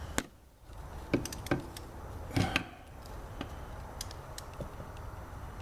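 Irregular sharp clicks and knocks of hand tools being handled while a bolt is readied to be torqued to 16 foot-pounds, with a heavier pair of knocks about a second in and another about two and a half seconds in.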